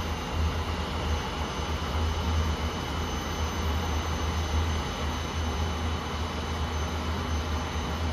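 Steady running noise of an industrial aluminium melting furnace under test: a deep rumble under an even hiss, with faint steady high-pitched whines and no change throughout.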